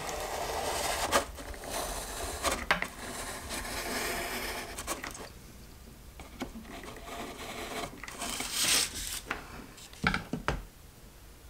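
Hot glue gun worked along a foam board seam: the nozzle scrapes and rubs along the board, busiest for the first five seconds, with scattered clicks. About ten seconds in the gun is set down on the wooden table with a couple of sharp knocks.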